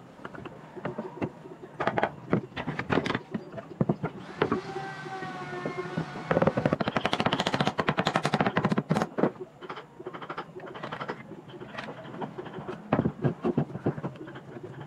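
Hammer striking a wooden chair frame on a workbench: scattered knocks, then a fast run of blows lasting about three seconds, starting about six seconds in, then a few more knocks near the end. A short pitched squeak comes just before the fast run.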